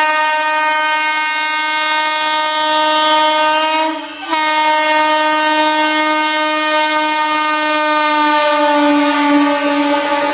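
Vande Bharat Express train horn sounding one long, continuous blast, broken only once for a moment about four seconds in. Near the end its pitch drops slightly while the noise of the train on the rails grows.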